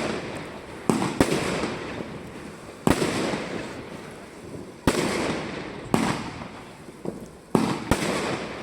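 Salon Roger 'The Next Level' fireworks cake firing its 22.5 and 30 mm shots: about eight sharp bangs at irregular intervals of roughly half a second to two seconds. Each bang is followed by a fading rush of noise.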